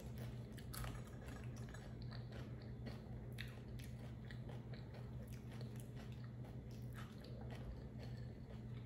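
Tortilla chips crunching and being chewed: many small, crisp crackles at an uneven pace. A steady low hum runs underneath.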